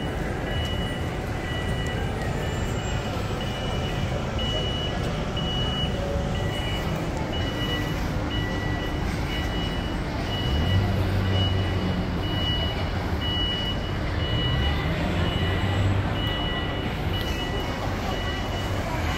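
Shopping-mall background noise with a high electronic beep repeating about every two-thirds of a second throughout, and a low hum that swells in the middle.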